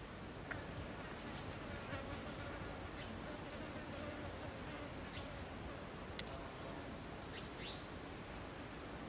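Short, high, thin chirps, each falling quickly in pitch, from a small animal calling; they come about four times, roughly two seconds apart. There is one sharp click about six seconds in.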